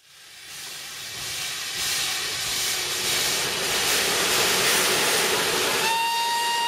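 Steam locomotive hissing as steam escapes, fading in and building up over the first couple of seconds. Near the end a steam whistle blows one steady note.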